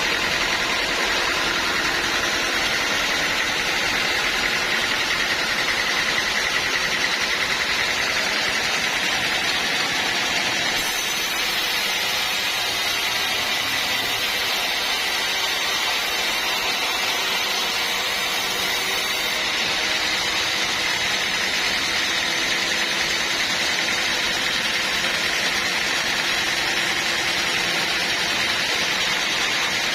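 Band sawmill running steadily, its machinery making a dense noise with a steady high whine over it.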